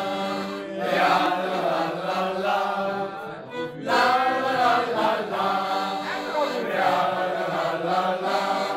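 A group of men singing a song together to piano accordion accompaniment. The singing breaks off briefly about three and a half seconds in, then picks up again.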